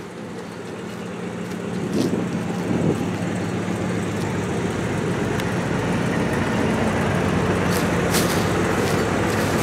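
A parked motorhome running with a steady low mechanical hum, getting louder over the first couple of seconds as the microphone comes closer to it.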